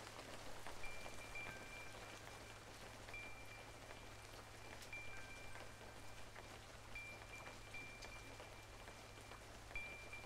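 Rain falling, with faint scattered drop ticks, under sparse high chime-like notes that ring out and hold every second or two. A low steady hum runs underneath.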